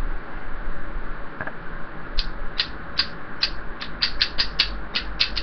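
Small plastic squeeze bottle of thick Carolina Reaper pepper puree being squeezed onto a metal spoon. It gives a run of short, sharp squeaks and crackles that start about two seconds in and come faster toward the end.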